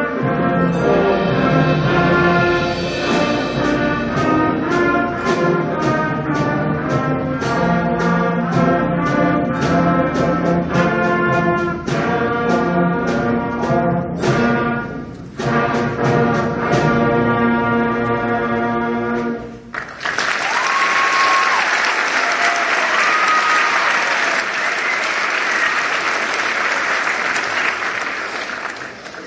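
Beginning school concert band of brass and woodwinds playing a piece, which ends on a held final chord about twenty seconds in. The audience then applauds, the clapping fading out near the end.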